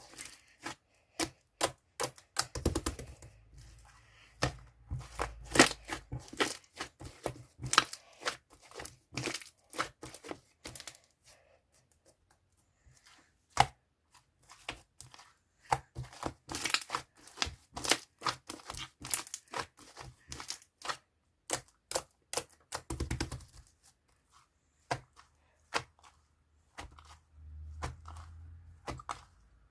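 Chewy peach yogurt slime being pressed, stretched and folded by hand, giving off many irregular sharp pops and clicks as trapped air breaks, with a couple of brief pauses.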